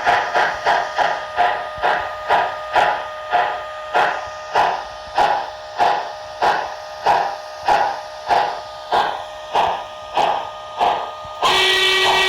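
Digital sound of an HO scale model steam locomotive, played by its LokSound 5 decoder through an onboard speaker: steady exhaust chuffs that slow from about three a second to under two a second. Near the end a multi-note steam whistle sounds and holds.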